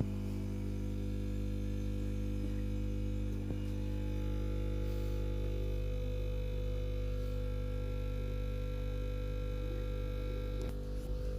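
Small electric air compressor running with a steady hum.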